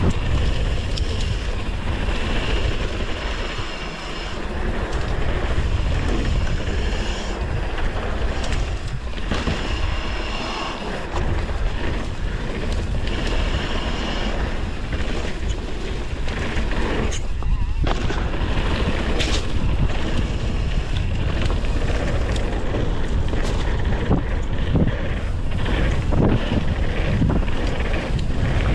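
Downhill mountain bike running fast over a rough dirt trail: wind buffeting the microphone over the rattle of the bike, with frequent knocks and clatter as it hits bumps and rocks.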